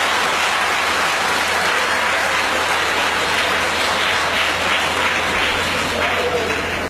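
Audience applauding steadily, cutting off abruptly at the end.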